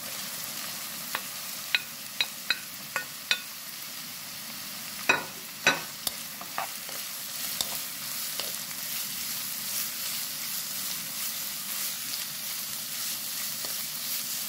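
Rehydrated celtuce stems (gungchae) stir-frying in chili oil with garlic and green onion in a nonstick pan, with a steady sizzle. Over the first half, sharp clicks and knocks come from the stirring with a wooden spoon, the two loudest about five seconds in.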